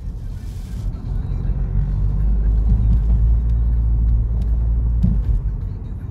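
Car on the road: a steady low rumble of engine and road noise, swelling about a second in and easing off near the end.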